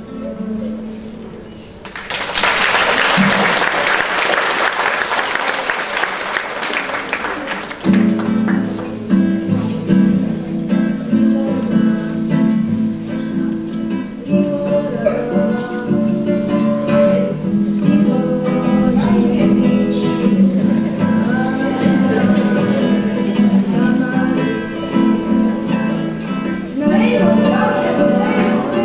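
A classical guitar finishes playing, then applause runs for about six seconds. About eight seconds in, the guitar starts strumming chords and a children's choir sings along.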